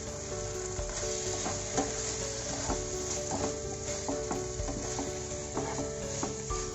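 Chopped onion, capsicum and tomato with ketchup sizzling in oil and butter in a pan, while a spoon stirs the mix and scrapes and clicks against the pan now and then.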